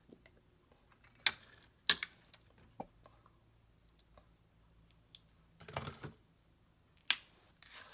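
Kitchen handling sounds: a few sharp clicks in the first three seconds as a butter knife taps and is set down by a plate, a short scrape about six seconds in as the peanut-butter jar is moved on the granite counter, and a click and brief tearing near the end as a banana is opened.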